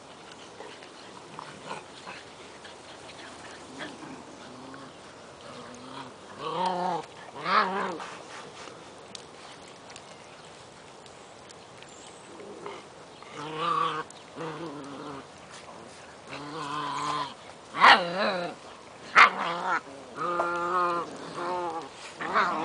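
Seven-week-old puppies play-wrestling, giving short pitched yips and whines in several bursts, more often in the second half.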